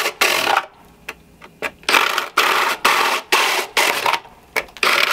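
Paddle bit in a drill grinding into a rigid-foam skull, a series of short scratchy bursts about half a second each, with a pause of about a second near the start.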